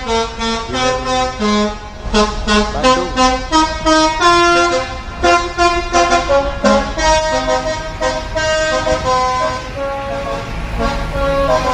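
Basuri 'telolet' multi-trumpet air horn on a Sinar Jaya bus playing a quick tune of short notes that jump from pitch to pitch.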